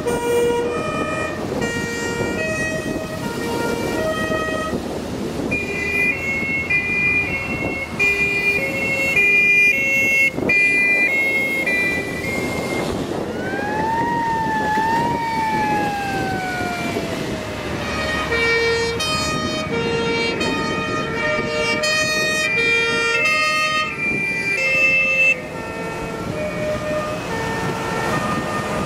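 Two-tone horns on several vintage fire engines sound at once, their alternating high-low notes overlapping out of step, over the running engines of the passing trucks. Around the middle a siren wail rises and then slowly falls away.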